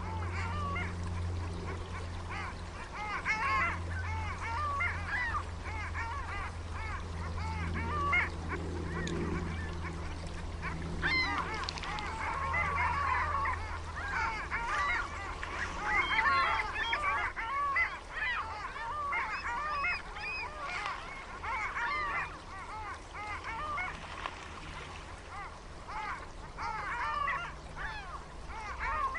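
A flock of geese honking, many short calls overlapping, busiest around the middle, over a low steady hum during the first half.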